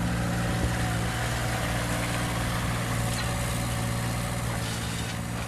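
Steady low engine hum, like an engine idling, easing off slightly near the end.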